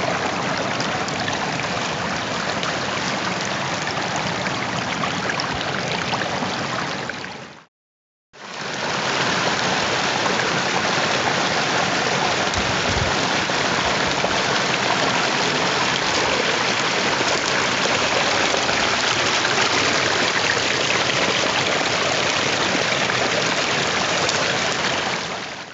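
Rushing water of a river cascade, a steady even roar of white water. It fades out about eight seconds in, stops for half a second, then fades back in and runs on.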